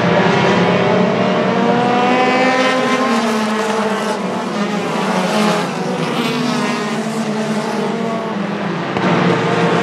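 A pack of pure stock race cars running laps on a short oval track, several engines heard at once, their pitch rising and falling as the cars pass and go around the turns.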